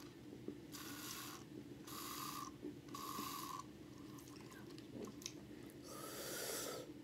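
Three slurping sips through a plastic straw from a can of sparkling flavoured water, each a short hissing draw about half a second long. Near the end comes a breathy exhale through pursed lips.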